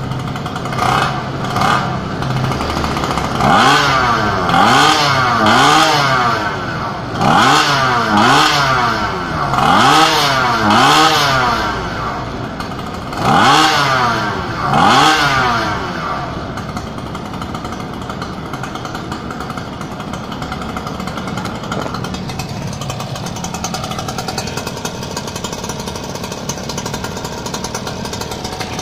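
Zenoah G45L 45cc two-stroke engine with a tuned expansion-chamber exhaust on a gas scooter, revved in about ten short throttle blips over the first fifteen seconds, each rising and dropping back, then idling steadily.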